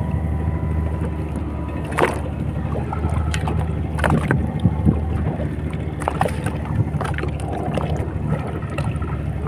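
A fishing boat's engine running steadily at low revs, with water moving along the hull and wind on the microphone. A few short sharp knocks come about two, four and six seconds in.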